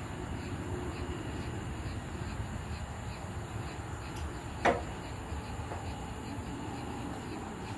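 Steady low rumble of a running fan, with one short sharp click or knock about four and a half seconds in.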